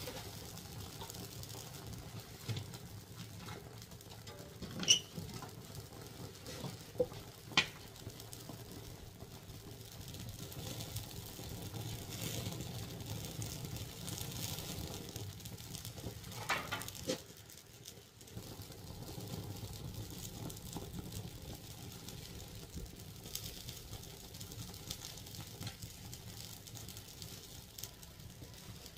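Wood fire crackling in a traditional Korean ondol firebox (agungi) as it is stoked, over a steady low rustle. A few sharp snaps stand out, the loudest about five seconds in and again about seven and a half seconds in, with another pair around seventeen seconds.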